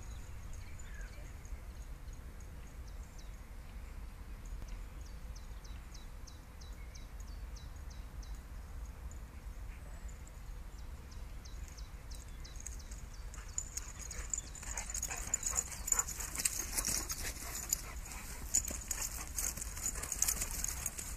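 Dogs playing on grass, with a low steady rumble and faint high ticks at first. About two thirds of the way in, a Doberman comes close and a dense run of quick scuffs and clicks from the dog sets in, louder than anything before.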